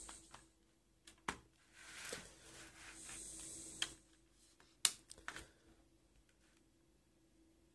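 Faint handling of a fold-out DVD box set: a soft rustle as a panel is opened out, and a few light clicks of fingers and plastic disc trays, the loudest about five seconds in.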